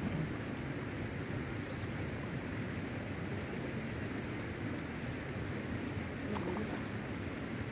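Steady outdoor wind rumble on the microphone, with a steady high-pitched hiss over it and a faint click about six seconds in.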